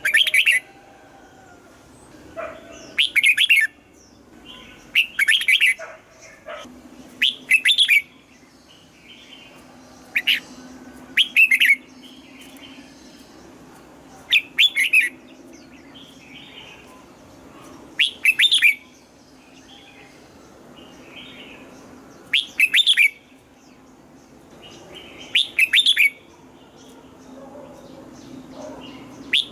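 Red-whiskered bulbul singing short, loud song phrases, about ten of them a few seconds apart, over a steady low hum.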